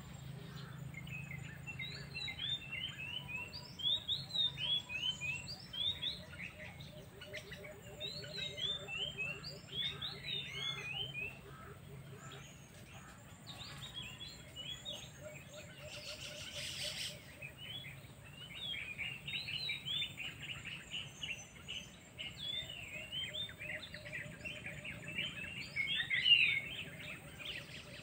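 Many small birds chirping and twittering in a busy outdoor chorus of short, quick notes, loudest near the end. A brief burst of rustling hiss cuts in a little past halfway.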